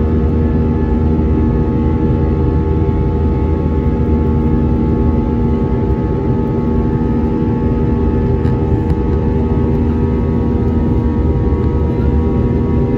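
Cabin noise of an Airbus A320-232 in flight, heard from a window seat beside its IAE V2500 turbofan engine: a steady low rumble with several steady whining engine tones over it.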